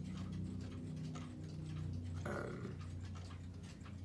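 Seth Thomas dual chime wall clock ticking softly, with a low steady hum underneath and a brief sound about two seconds in.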